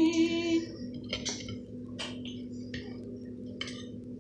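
Forks clicking and scraping against plates and food containers: five or so short sharp ticks, irregularly spaced, over a steady low hum. A woman's sung note trails off in the first moment.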